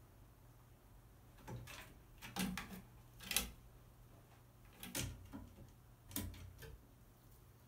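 A crow hopping and gripping along a wooden perch: five sharp knocks, irregularly about a second apart, some trailing into a short rattle.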